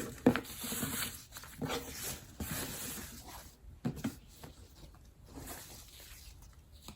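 Luxury-goods packaging being opened by hand: a sharp knock near the start, then about three seconds of paper rustling and crinkling, dying down to light handling noises.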